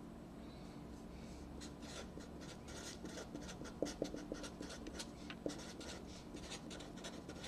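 Felt-tip marker drawing and writing on paper: a run of short, faint scratchy strokes that starts about a second and a half in.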